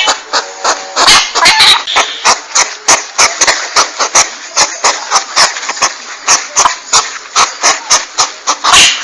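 Porcupine sounds from a lure recording: a fast run of short, sharp clicks, about three to four a second, broken by louder rough, noisy calls near the start and again near the end.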